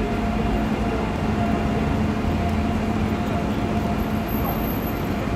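AVE high-speed electric train at a station platform, giving a steady low hum with a constant mechanical rumble.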